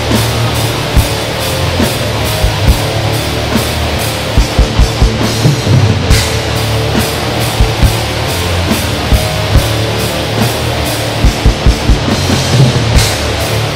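Black metal recording: a dense wall of distorted guitar over drums, with quick clusters of kick-drum hits and bright crashes about six seconds in and again near the end.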